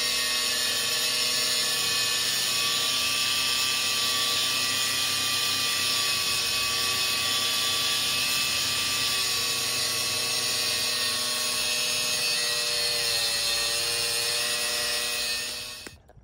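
Handheld angle grinder running under load against a wall, a steady high whine; near the end its pitch sags a little as it bears down, then the sound cuts off suddenly.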